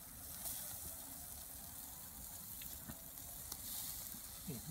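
Skewered kebabs sizzling over a charcoal grill: a steady, faint hiss with a few light ticks.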